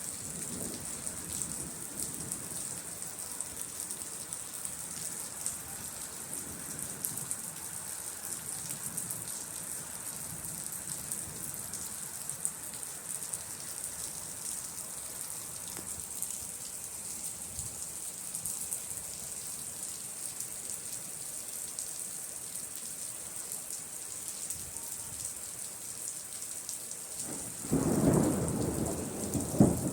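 Steady rain hiss from a monsoon thunderstorm. Near the end a sudden loud clap of thunder breaks in and rumbles on.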